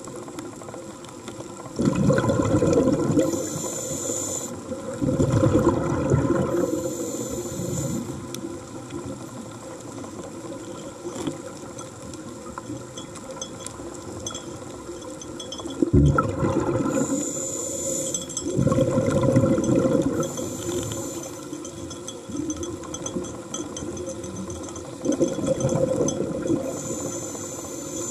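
Scuba diver breathing through a regulator underwater: a hiss on each inhale alternating with a loud bubbling rush on each exhale, repeating over a few slow breaths.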